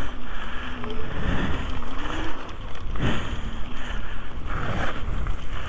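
Steady rumble of wind buffeting a handlebar-mounted action camera's microphone and tyres rolling on a gravel trail as an e-bike rides along, with a faint wavering hum under it.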